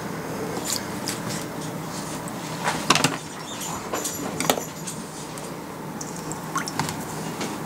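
Water splashing and a nylon aquarium net rubbing and knocking in a plastic tub as a spotted puffer is caught by hand: scattered light splashes and clicks, loudest about three seconds in and again around four and a half seconds, over a steady low hum.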